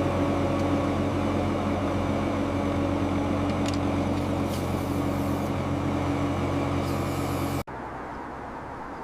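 Heavy road-paving machinery engine running steadily at a constant speed. Near the end it cuts abruptly to a quieter, steady machine hum.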